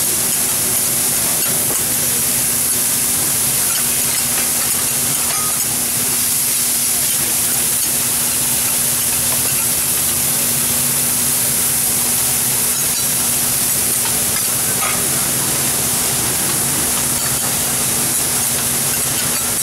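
Bean sprouts sizzling and steaming on a hot steel teppanyaki griddle: a loud, steady hiss, with a few light clicks of metal spatulas on the plate and a steady low hum underneath.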